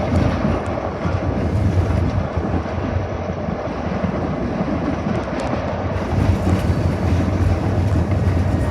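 Steady cab noise of an EMD SD40-2 diesel locomotive under way: its 16-cylinder two-stroke EMD 645 engine running with a constant low drone, mixed with rolling rail noise and some wind.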